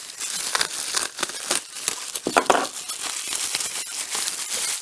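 Plastic bubble wrap crinkling and crackling as hands pull it open: a dense run of irregular crackles.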